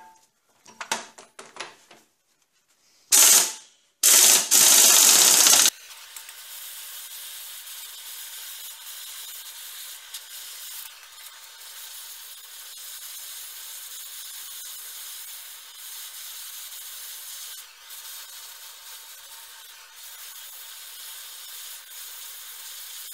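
Pneumatic impact wrench on a Dana 30 pinion nut, running in two short loud bursts without breaking the nut loose. After that, a handheld propane torch hisses steadily as it heats the nut.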